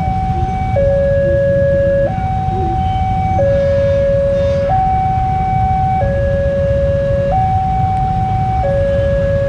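Railway level-crossing warning alarm sounding its electronic two-tone signal, switching between a lower and a higher tone about every 1.3 seconds: the warning that a train is approaching the crossing. A steady low rumble runs underneath.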